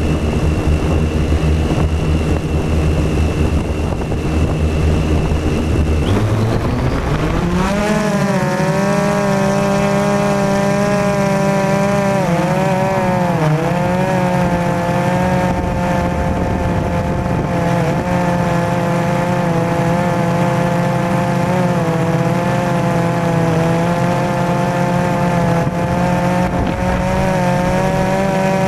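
Multirotor drone's motors and propellers, heard from a camera mounted on the drone. A steady low hum at idle on the ground, then about six seconds in the pitch climbs quickly as it throttles up and lifts off. It settles into a steady whine that wavers in pitch as it manoeuvres.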